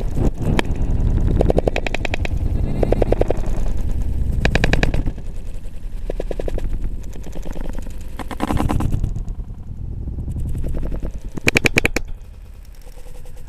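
A camera strapped to a running dog's harness rattling and jolting: fast clattering bursts, several times, over a loud rumble of handling noise, dropping quieter near the end.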